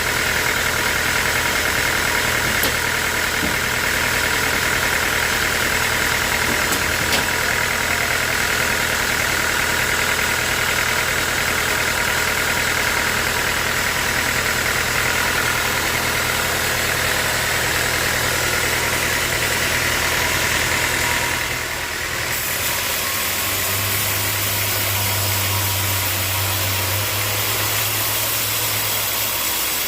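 A sawmill's engine-driven machinery running steadily. About two-thirds of the way through, the sound shifts: the high hiss briefly drops away and a deeper hum takes over.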